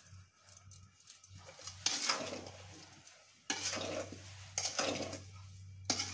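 Metal spoon stirring and scraping chunks of mango in a steel bowl on a wood-fired clay stove: four scraping strokes about a second apart, starting about a second and a half in.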